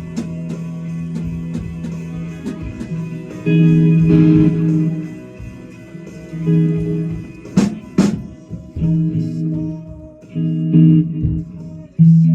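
A guitar through the PA plays single chords, each let ring for about a second and then stopped, with short gaps between them, like a setup sound check. Two sharp clicks come close together about eight seconds in.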